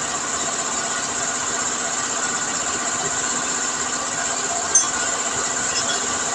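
Steady mechanical running noise with a hiss over it, and one short click about five seconds in.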